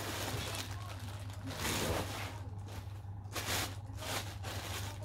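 Plastic wrapping rustling and crinkling in irregular bursts as items are pulled out of a nylon tool bag, over a steady low hum.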